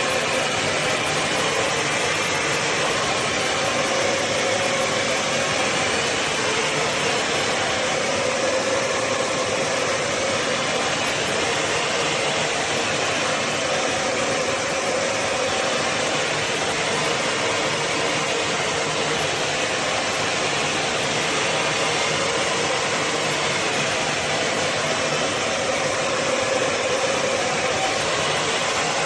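Bissell CrossWave HydroSteam Pet wet-dry vacuum running steadily, an even motor-and-airflow noise with a faint steady hum.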